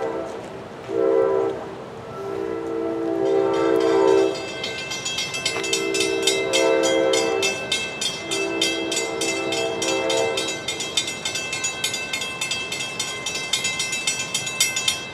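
NJ Transit train horn sounding a short blast and then three long blasts as the train approaches. From about three seconds in, a bell rings rapidly and keeps on after the horn stops.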